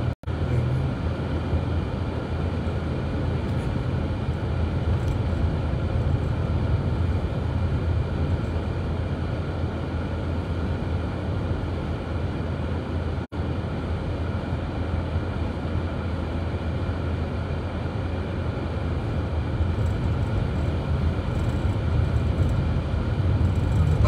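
Steady low road and engine rumble inside a car's cabin as it drives along a snow-covered highway. The sound cuts out for a split second twice, near the start and about halfway through.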